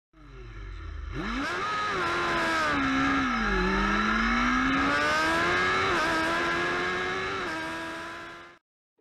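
Racing engine revving: it fades in and climbs in pitch, drops back twice a few seconds in, then climbs steadily again before easing off and cutting out near the end.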